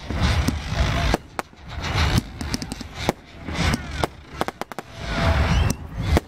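Fireworks going off in a display: a rapid, irregular run of sharp bangs and crackles, one after another.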